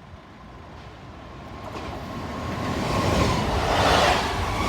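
Passenger train approaching and passing through a level crossing, its rumble and wheel noise building steadily to a peak about four seconds in.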